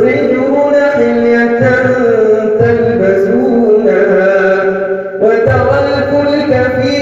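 A man reciting the Quran in melodic tajweed style, drawing out long held notes that slide between pitches. There is a brief pause for breath about five seconds in.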